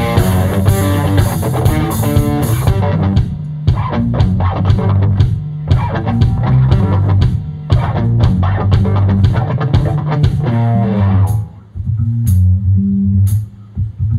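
Rock band playing live on electric guitar, bass guitar and drum kit. Cymbals wash over the first few seconds, then drum hits and guitar lines carry on. About eleven seconds in, the guitar and cymbals drop out, leaving the bass and a few scattered hits.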